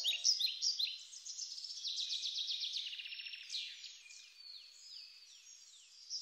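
Songbirds singing: many quick, high chirps, downward-sweeping notes and short trills overlapping.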